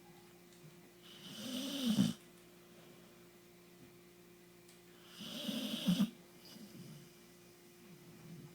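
A sleeping pet snoring: two long snores, about a second in and about five seconds in, each growing louder and then cutting off sharply.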